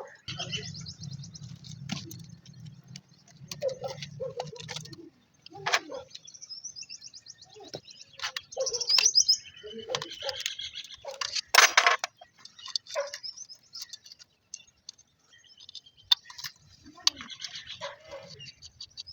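Small birds chirping in quick high trills, with scattered sharp clicks and knocks. A low steady hum runs through about the first five seconds.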